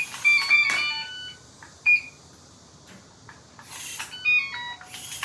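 Kaiser digital gate lock operated by its remote, playing short runs of high electronic beep tones with a few sharp noisy clicks. One run comes at the start, a single beep about two seconds in, and another run about four seconds in.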